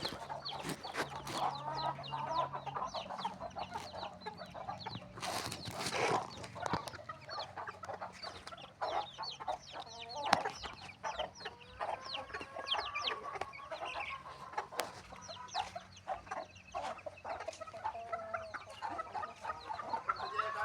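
A flock of desi (native) chickens clucking and calling, with many short calls overlapping throughout.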